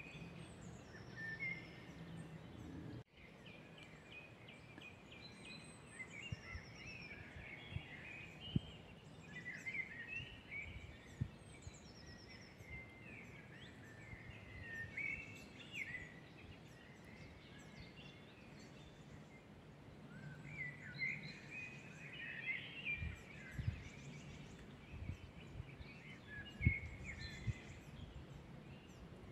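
Several woodland songbirds singing and chirping at once, with short trills and thin high whistles, over a soft outdoor hiss. A few soft low thumps come and go, and the sound cuts out for an instant about three seconds in.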